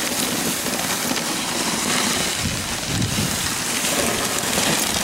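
Dog sled runners hissing and scraping over a packed snow trail while the team pulls the sled along.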